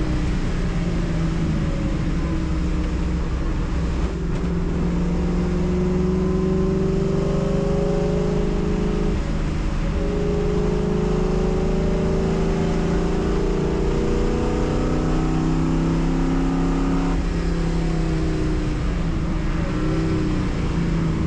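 Race car engine heard from inside the car under hard acceleration, its note climbing steadily and dropping sharply twice, about nine and seventeen seconds in.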